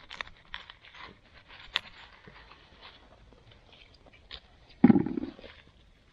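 Rustling and crackling of forest leaf litter and twigs close to the microphone, in many small irregular clicks, with one louder low thump just before five seconds in.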